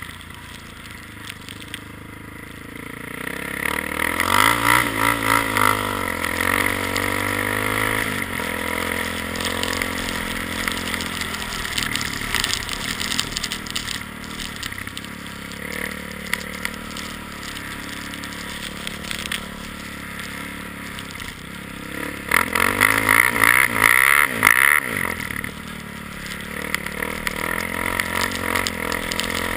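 ATV engine running under load through snow, revving up twice: a first spell about four seconds in and a louder one a little over twenty seconds in.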